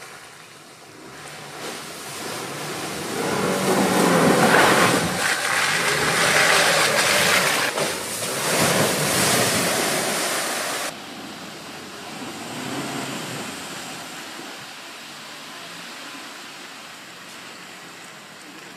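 Land Rover Defender driving through deep mud: engine and tyres churning with a rushing spray of mud and water that swells and cuts off abruptly about eleven seconds in, leaving quieter engine and tyre noise.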